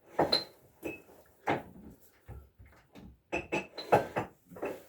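A run of short household knocks and clatters, about a dozen in under five seconds, a few of them with a brief ringing note.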